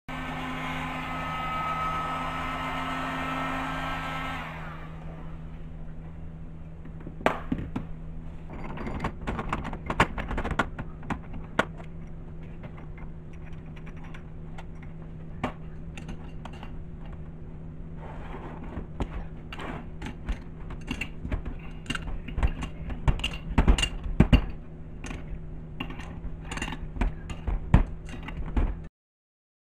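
A heat gun blows steadily for about four seconds on a crankshaft bearing, heating it to release the Loctite. It then stops, leaving a low steady hum with scattered metallic clicks and knocks as tools and parts are handled and a bearing separator is clamped on and tightened with a wrench. The knocks come thickest near the end.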